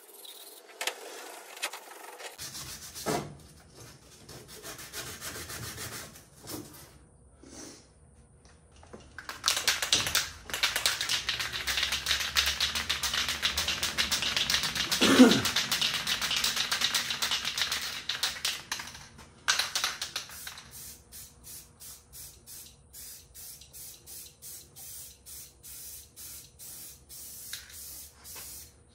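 Aerosol spray-paint can spraying in one long hiss of about ten seconds, coating a welded steel part black. Before it there are light handling knocks, and after it comes a run of quick, even strokes, about two or three a second.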